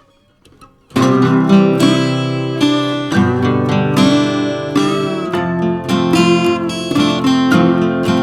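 Acoustic guitar music, strummed and plucked, starting about a second in.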